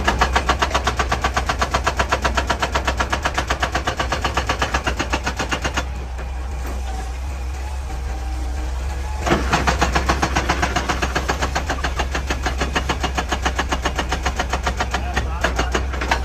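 Excavator-mounted hydraulic rock breaker hammering rock in rapid, even blows, about eight to ten a second, over the steady drone of the excavator's diesel engine. The hammering stops for about three seconds midway, leaving only the engine, then starts again.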